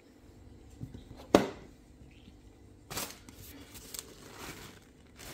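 Plastic lunch box being opened: a sharp snap of its clip latch, the loudest sound, then a second clack and a soft rustle of paper towels being handled.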